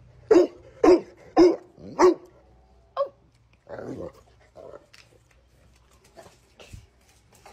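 Large mastiff-type dog barking four times in quick succession, about one bark every half second, then quieter.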